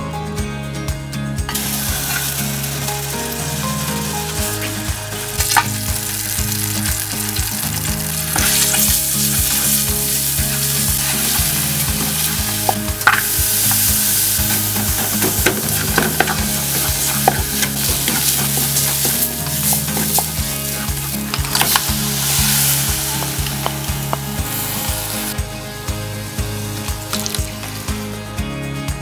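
Food sizzling in a frying pan while being stirred. The sizzle starts about a second and a half in and stops a few seconds before the end, over background music with a steady beat.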